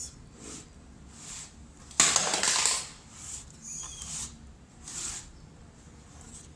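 Perfume packaging being handled: a series of short, soft rustles and scrapes, with one louder scraping rustle about two seconds in that lasts most of a second.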